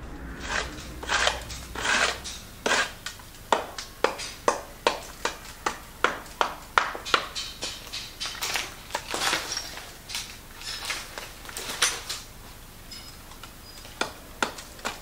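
Quick, uneven strokes of a hand tool scraping across a rough plaster wall, about two or three a second, to prepare its surface for painting. The strokes pause briefly near the end, then start again.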